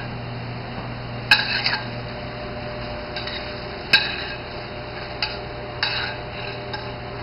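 Utensils clinking and knocking against dishes and pans in a few scattered strikes, the two sharpest about a second and four seconds in, over a steady low hum.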